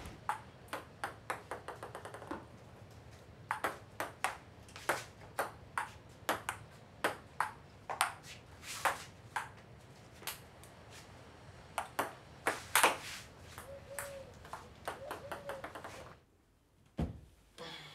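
Table-tennis rally: a ping-pong ball clicking back and forth on the table and paddles in an irregular run of sharp ticks. The rally stops, and one dull knock follows near the end.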